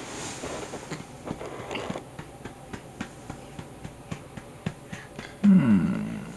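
A month-old being burped: light pats about three a second, then near the end a loud, short burp that falls in pitch.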